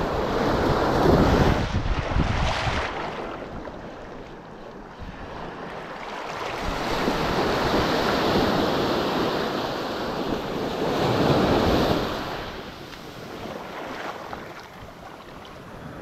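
Sea waves surging in and washing back, swelling loud twice and falling away between, with wind buffeting the microphone.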